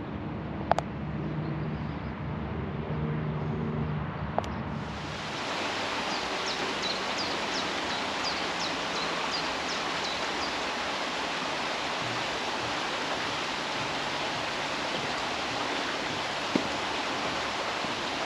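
Steady outdoor rushing noise, with a run of quick high chirps a few seconds in. At the start a lower steady hum with two sharp clicks is heard, and about four and a half seconds in it changes abruptly to the even rush.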